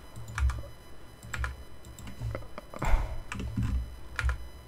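Computer keyboard keys pressed in irregular taps, about two or three a second, with dull thuds from the desk.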